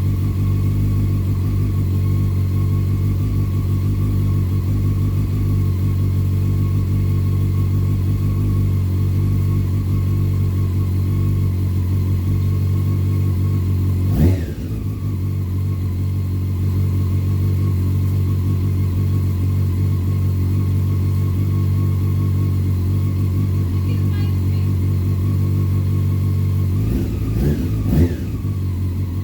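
2001 Honda CBR600 F4i's inline-four engine idling steadily on its first run after a valve adjustment. The throttle is blipped once about halfway through and twice more near the end.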